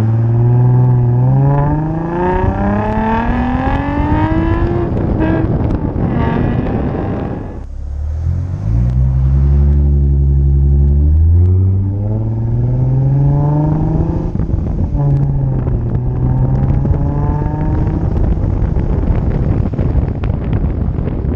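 2016 Ford Mustang V6's 3.7 L Cyclone engine through a Flowmaster Outlaw exhaust with X-pipe, accelerating hard: the exhaust note rises steadily for about five seconds, drops at a gear change, then pulls again with a deep drone and rises through another shift. It eases off near the end, with wind noise on the camera's microphone.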